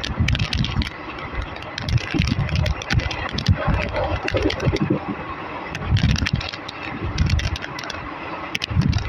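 ICF passenger coach of an express train running along the track: wheels clattering irregularly over rail joints, with sharp clicks, rattles and low thuds over a steady rushing noise.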